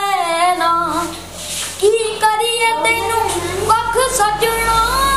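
A boy singing a Punjabi song unaccompanied, in a high voice with long held notes that slide up and down. A low steady hum comes in about three seconds in and grows louder.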